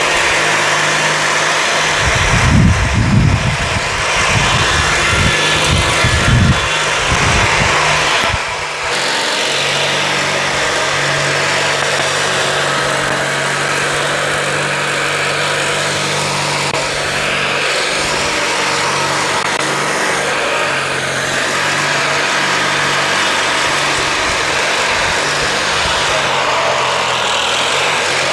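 Briggs & Stratton 19.5 hp opposed-twin engine of a Craftsman LT1000 lawn tractor running steadily, now that the water and bad gas are out of the fuel system. Low rumbling bursts a few seconds in.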